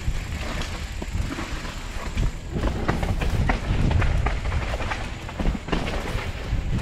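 Mountain bike rolling fast over a rough, rocky trail: a steady low rumble from the tyres with many quick rattling knocks from the bike's frame and chain, busiest around the middle.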